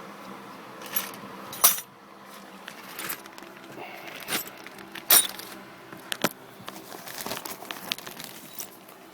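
Metal tool parts and bolts clinking and rattling as they are handled, most likely a steering wheel puller and its assorted bolts. They come as a string of separate sharp clinks, the loudest about one and a half and five seconds in.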